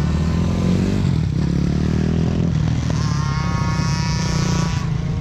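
125 cc four-stroke pit bike engines revving as riders accelerate round the track. The pitch climbs over the first couple of seconds, then a higher engine note comes in about three seconds in as a bike passes close, and cuts off just before the end.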